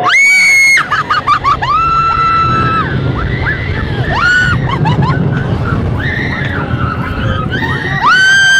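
A woman screaming on an amusement thrill ride: a string of long, high, held screams, the loudest right at the start and another long one near the end, over the ride's steady low rumble.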